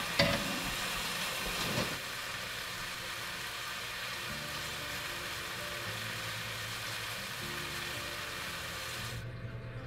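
Bananas frying in melted caramel in a nonstick skillet: a steady sizzling hiss, with a couple of light clicks in the first two seconds. The sizzle drops away near the end.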